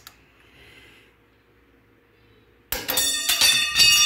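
A long steel torque wrench slips off the axle nut and crashes onto the concrete floor about two and a half seconds in, clanging with several quick bounces and ringing on as it settles. It slipped because the wedge holding the hub against the torque let go.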